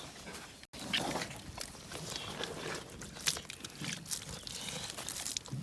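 Cow snorting and gurgling with handling noises while a liquid herbal remedy is drenched into its mouth. The sound drops out briefly just before a second in.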